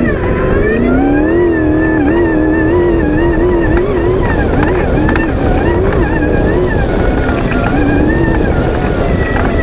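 V8 off-road race buggy's engine from onboard, revs climbing about a second in and then rising and falling as the throttle is worked across the sand.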